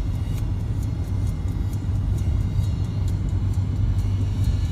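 Steady low rumble of a car's engine and tyres on the road, heard from inside the cabin while driving at speed.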